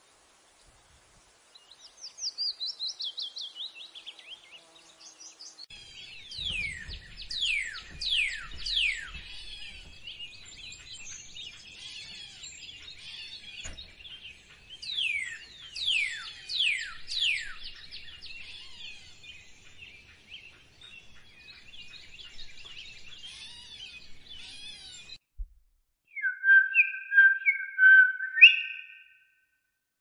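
Songbirds singing: a falling trill, then a long run of fast, downward-sweeping chirps over busy chatter. Near the end, after a break, a different bird whistles a few loud, clear notes.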